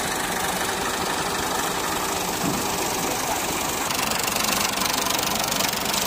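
Massey Ferguson tractor's diesel engine idling steadily with a knocking clatter, a little louder from about four seconds in.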